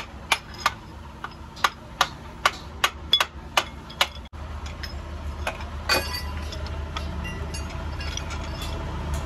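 Steel rod knocking against the bearing adjuster ring of an Isuzu truck's rear differential: about eleven sharp metal knocks over the first four seconds, two to three a second. After that come a few softer metal clinks over a low steady hum.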